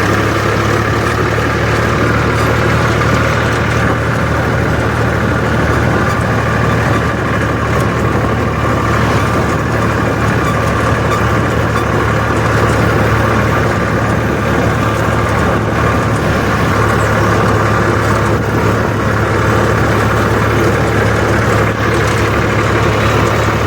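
Eicher 380 tractor's diesel engine running steadily with an even low hum.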